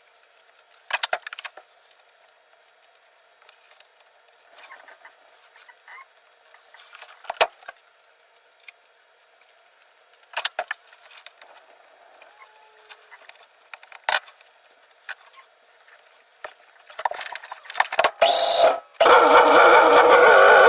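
Hand work on a car's interior and dash: scattered knocks and clicks every few seconds, then a loud continuous noise for about the last two seconds.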